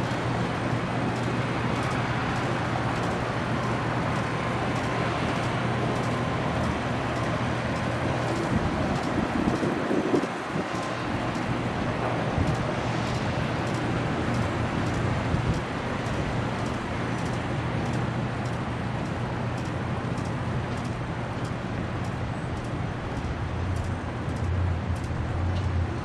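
Steady urban din of road traffic and running engines, with a constant low engine hum underneath.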